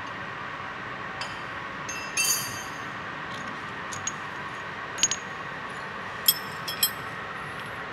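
Metal tools and steel parts clinking against the gears of a hydraulic pump drive unit as it is dismantled. There are a few sharp, briefly ringing clinks: one about two seconds in, then several between five and seven seconds. A steady background hiss runs throughout.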